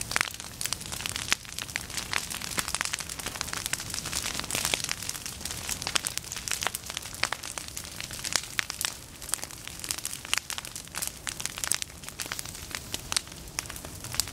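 Prescribed prairie fire crackling as flames burn through dry standing goldenrod and other tall forbs, with many irregular sharp pops over a steady hiss.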